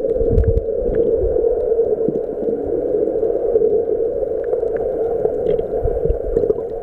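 Underwater sound picked up by a camera below the surface: a steady low hum with scattered faint clicks and low rumbles of moving water.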